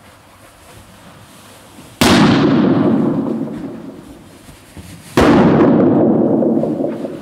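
Two loud latex balloon pops, about two and about five seconds in, as the balloons are squeezed in a hug until they burst. Each bang rings on in a long echo in the sports hall.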